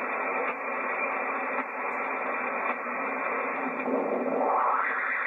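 Yaesu FT-757GX HF transceiver's speaker giving steady receiver hiss as the main tuning dial is turned across the 40-metre band. About four seconds in, a station's voice sweeps through with a gliding pitch as it is tuned past.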